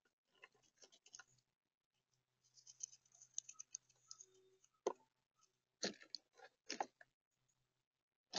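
Eastern gray squirrel gnawing acorns and rummaging through a tub of them: faint, scattered crunching and clicking of shells and nuts, with three louder clacks in the second half.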